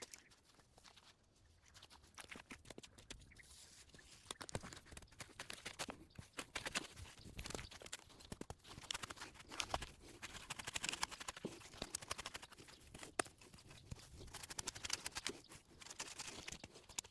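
Dry grass and weeds being cut and pulled by hand: irregular crackling and rustling with many sharp snips and clicks, thickening after the first couple of seconds.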